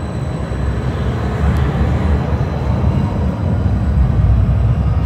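Calgary CTrain light-rail train moving past along the platform: a low, steady rumble that grows louder toward the end.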